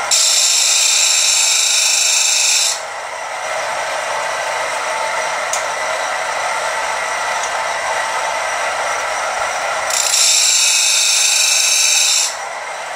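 Homemade tool grinder running, its belt-driven electric motor and wheel giving a steady whir. Two louder stretches of high hiss lie over it, one at the start lasting under three seconds and another about ten seconds in, each cutting off suddenly.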